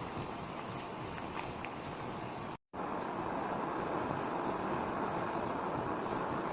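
Steady sizzling of food frying in hot oil. It breaks off for a moment about two and a half seconds in, then resumes louder.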